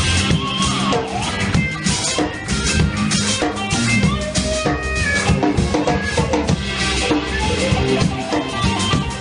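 A live band playing without vocals: a drum kit keeps a steady beat under bass and guitar.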